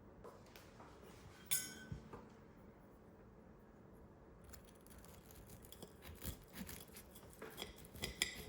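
Small household objects being handled: one sharp, ringing clink about a second and a half in, then an irregular run of light taps and clinks in the second half.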